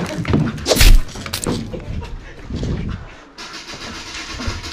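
Two loud knocks about a second in, among scuffing and clatter close to the microphone.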